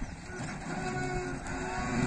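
Tractor engine running as it pulls a trailer loaded with pipes. From about half a second in, a short tune of held, stepping notes plays over it.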